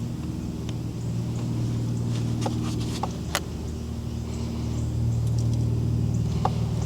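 An engine idling with a steady low hum, with a few faint light clicks over it.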